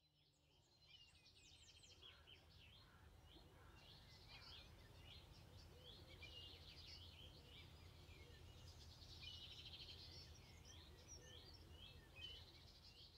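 Faint birdsong, many short chirps and trills from birds, over a low steady outdoor rumble. It fades in about a second in.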